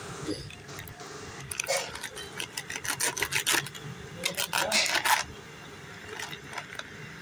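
Plastic bag crinkling and rustling as it is handled, in irregular bursts during the first five seconds or so, then quieter.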